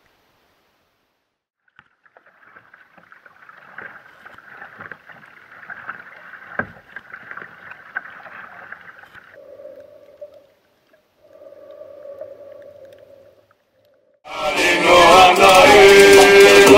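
Kayak paddle dipping and splashing in the water, with faint slapping and dripping sounds from the strokes. About 14 seconds in, this cuts abruptly to a group of men singing loudly together, accompanied by a ukulele.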